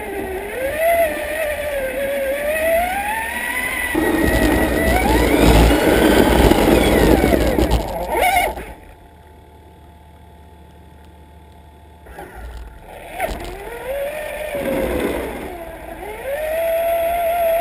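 Traxxas Summit RC truck's electric motor and drivetrain whining, the pitch rising and falling with the throttle. A louder rough noise builds in the middle as it pushes, then the whine stops for about three seconds and returns climbing.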